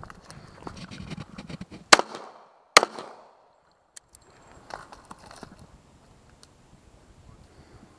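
Two rifle shots about a second apart, the loudest sounds, with rustling of movement before them and a few faint clicks after.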